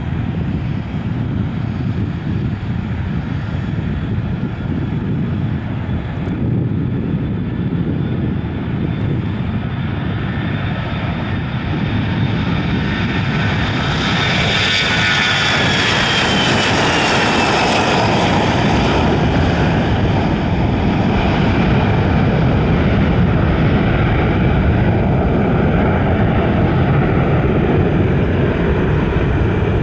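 Airbus A321 jet engines at takeoff thrust: a steady low rumble during the takeoff roll, then a high fan whine that falls in pitch as the jet passes about halfway through. The rumble carries on as it climbs away.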